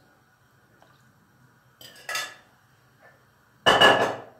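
A metal wire skimmer knocking against kitchenware: a light clink about two seconds in and a louder, ringing clank near the end.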